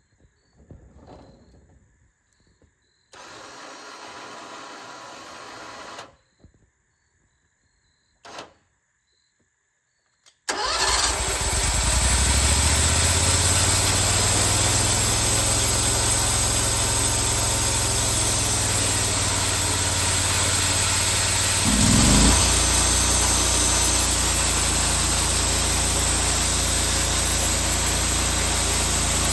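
Near quiet with a short hiss and a click, then a bandsaw mill's gasoline engine comes in suddenly and runs steadily at speed. Its pitch briefly rises and its level swells once, partway through, as the engine's speed changes.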